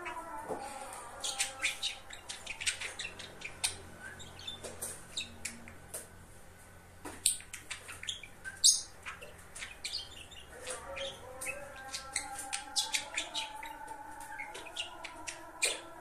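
Budgerigar chattering and warbling: a quick run of chirps and clicks mixed with short warbled notes, with one sharp click about halfway through the loudest.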